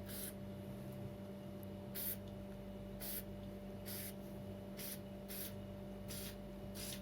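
WD-40 aerosol can sprayed through its straw nozzle in about eight short squirts, roughly one a second, each a brief hiss. The spray is being worked into a boot's insole seam to soak it and stop the shoe squeaking. A faint steady hum runs underneath.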